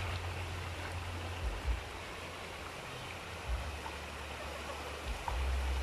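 Creek water running steadily, with a low uneven rumble underneath.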